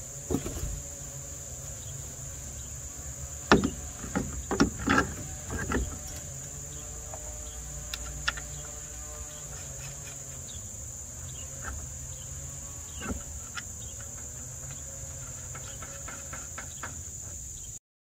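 Metal clinks and knocks as a new master cylinder is set onto the power brake booster's mounting studs and its nuts are run down, with a cluster of sharp clicks a few seconds in and a few scattered ones later. A steady high insect drone runs underneath.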